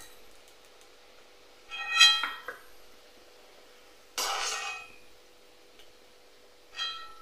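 A metal spoon clinking against an aluminium kadai while lifting fried pakodas out of the oil: three clinks about two seconds apart, each ringing briefly.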